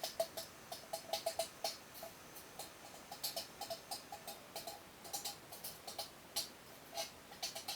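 Ratchet wrench clicking in quick bursts of several clicks a second, with short pauses between runs, as wheel assembly hardware is tightened.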